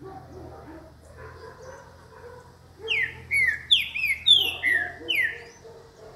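Green-winged saltator (trinca-ferro) singing: a loud phrase of about seven clear whistles, each sliding downward in pitch. The phrase starts about three seconds in and lasts about two and a half seconds.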